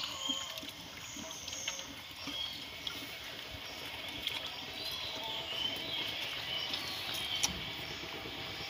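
A calf slurping wet rice feed from a plastic basin, with irregular wet lapping and splashing sounds. Small birds chirp high in the background.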